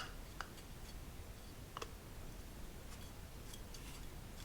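A few sharp clicks as the heater's fan is pushed back onto its motor shaft: a strong click at the start, another about half a second later, one near the middle, then a few faint ticks.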